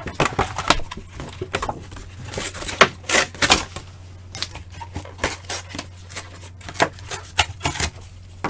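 Computer keyboard keys clicking in irregular runs of typing, over a steady low hum.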